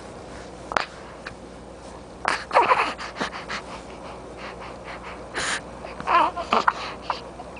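A young baby's short breathy huffs and brief wavering vocal sounds, coming in several separate bursts, the loudest a little after two seconds and again just past six seconds.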